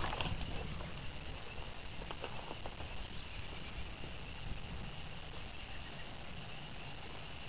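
Outdoor rural ambience: a steady low rumble under a faint, steady high-pitched chorus of insects or frogs. A single knock comes right at the start, and a few faint clicks follow about two seconds in.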